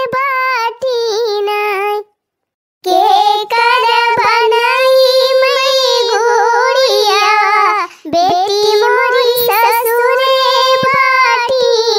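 A high-pitched voice singing an Awadhi folk song in long, drawn-out, wavering notes. The singing breaks off briefly about two seconds in, then resumes.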